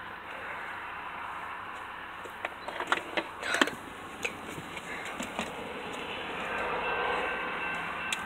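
Quiet cabin noise of a stopped Chevrolet car, with a few clicks and knocks from handling inside the car. Faint steady tones come in about halfway through and grow slightly louder near the end.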